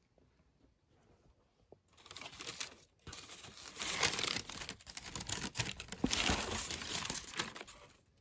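White tissue paper in a sneaker box being rustled and crumpled, a dense crinkling that starts about two seconds in, breaks briefly around three seconds in, and runs on until near the end.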